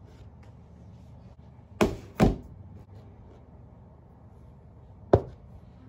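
Two knocks close together about two seconds in, then a single sharper knock near the end, over a low steady hum: things being set down on a desk, a laptop among them.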